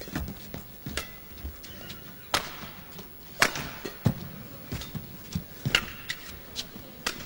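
Badminton rally: sharp, irregular cracks of rackets striking the shuttlecock, with shoe squeaks and footfalls on the court between shots.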